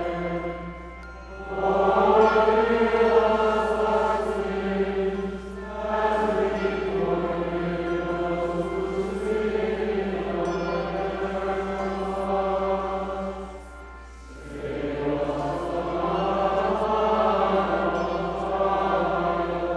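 Choir singing a slow liturgical chant in long held phrases, with short pauses between phrases about a second in and again about fourteen seconds in.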